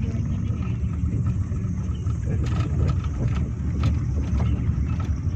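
Car driving along a country road: a steady low rumble of engine and road noise.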